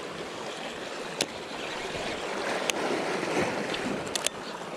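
Sea water washing and lapping against shoreline rocks, a steady rush, with a few sharp clicks about a second in, around the middle, and a quick double click near the end.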